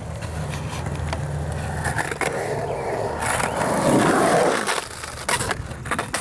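Skateboard wheels rolling on concrete, growing loud about four seconds in as the board rolls close past, with sharp clacks of the board against the concrete here and there, several of them near the end.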